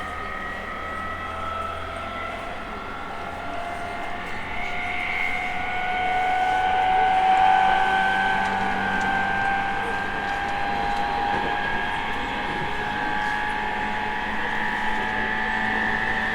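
E217 series electric train's traction motors and inverter whining inside the passenger car, several tones slowly rising in pitch as the train gathers speed, over a steady running rumble. The uploader calls it a very loud running sound.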